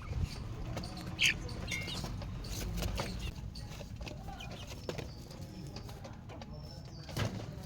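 Young chickens (chicks) peeping, with short high chirps about a second in, among scattered light clicks and taps.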